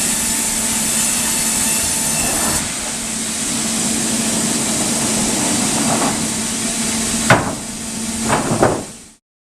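Sawmill saw machinery running with a steady whir and hiss. A sharp knock comes about seven seconds in, a few more follow, and then the sound cuts off abruptly.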